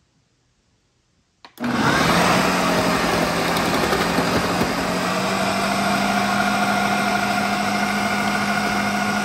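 Ninja Auto-iQ blender motor switched on at its low speed with a click about a second and a half in, then running steadily with a low hum while its grating disc shreds beetroot.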